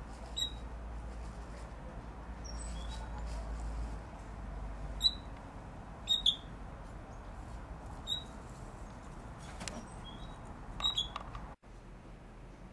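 Short, high chirping calls, one every second or two, with a few faint clicks over a low rumble.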